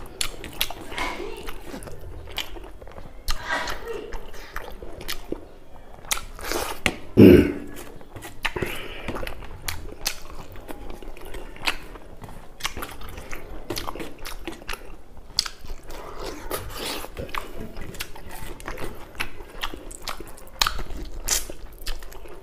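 Close-up eating sounds of a man eating buffalo meat and rice with his hand: chewing, lip smacking and many small wet clicks, with rice being worked between the fingers, and one much louder short sound about seven seconds in.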